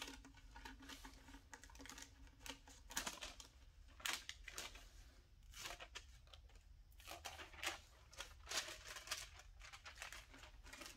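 Faint, irregular taps and rustles of a paper template being handled: pressed and smoothed along the edges of a console, then peeled up.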